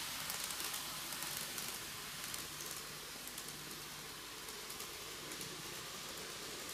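N-gauge model train (Meitetsu KiHa 8000 diesel railcar set) running away along the track: a faint rolling hiss with fine rapid clicking from the wheels on the rails, fading about two to three seconds in and leaving a steady hiss.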